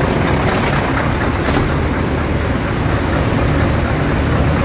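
Heavy diesel engine running steadily at low revs, a deep even rumble, with one light click about one and a half seconds in.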